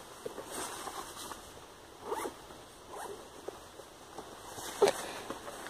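Rain jacket being put on: fabric rustling and its zip being pulled, in several short strokes, the sharpest one near the end.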